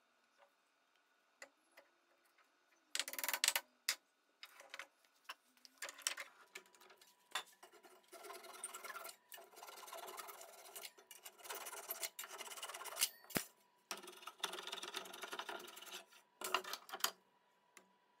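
Japanese-style pull saw cutting protruding wooden wedges off flush with a board, in bouts of rasping strokes with short pauses between them. A few sharp handling knocks come about three seconds in, before the sawing starts.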